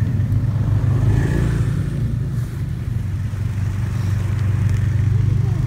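Steady low rumble of wind buffeting the phone's microphone. Near the end there are a few faint rising-and-falling whines from the harnessed huskies.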